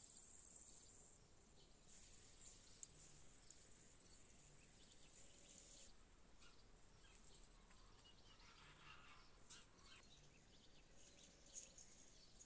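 Faint rural outdoor ambience: a steady high insect trill, broken briefly about a second in, with scattered faint bird chirps.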